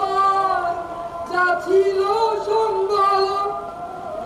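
A man's voice singing in long, wavering held notes with short breaks between phrases.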